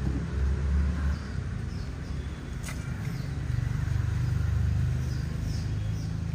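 A motor vehicle engine running with a low, steady hum that swells louder a little past the middle. Small birds give several short, falling chirps over it, and there is one sharp click.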